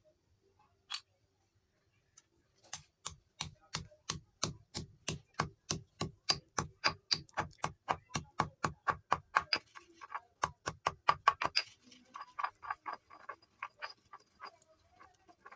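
Brittle chalk-like sticks being crushed in a fast, even run of sharp crunches, about four a second, that stops abruptly before a softer, uneven crumbling.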